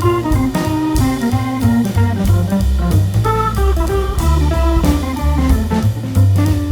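Background music: an instrumental band tune with drum kit, bass and guitar or keyboard, at a steady beat.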